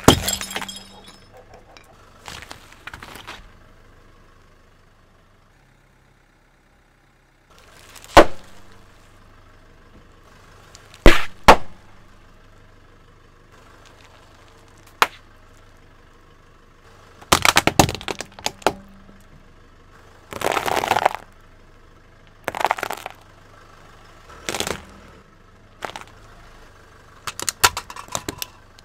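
A car tyre crushing objects one after another: glass bottles breaking near the start, then a string of sudden sharp cracks, pops and crunching bursts of plastic giving way.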